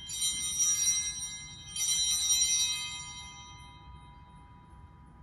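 Altar bells rung twice, at the start and again about two seconds in, each ring a bright, jangling cluster of high tones that fades away over a couple of seconds. They mark the elevation of the chalice at the consecration of the Mass.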